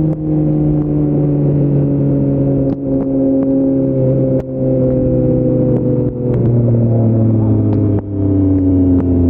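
Yamaha MT-09's 890 cc inline-three engine running through an Akrapovic full-system exhaust, heard from the rider's seat. Its pitch sinks slowly and steadily, and its sound dips briefly about every second and a half.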